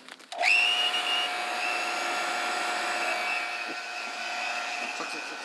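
A vacuum-bagging pump switches on about half a second in, its whine sliding quickly up in pitch and settling into a steady running drone as it starts drawing the air out of the bag around a resin-wetted fiberglass layup.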